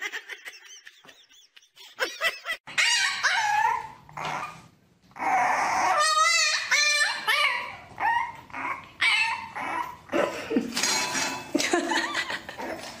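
French bulldog puppy whining and yapping over and over, in short high calls that waver up and down in pitch, starting a few seconds in.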